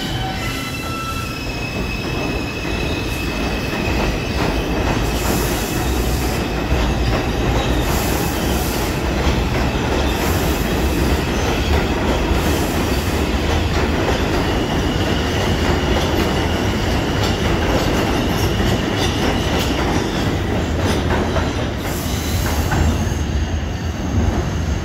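New York City Subway Bombardier R142 train running along the station platform, with a loud steady rumble of wheels on rail. High metallic wheel squeal rises over the rumble for a few seconds near the start and again past the middle.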